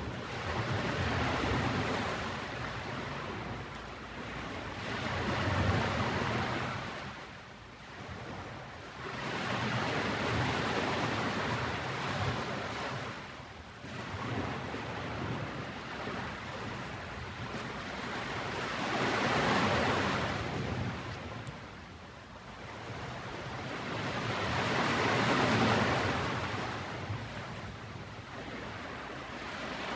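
Ocean waves breaking on a beach: a rushing surf that swells and fades about five times, each wave a few seconds long.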